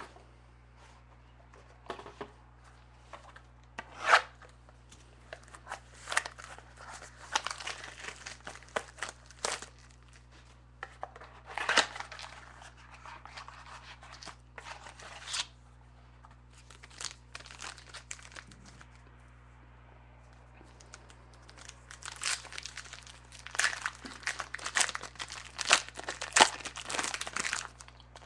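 Plastic wrapping being torn and crinkled while a trading-card mini box is opened by hand, in bursts of crackling with a couple of sharper snaps, over a steady low electrical hum.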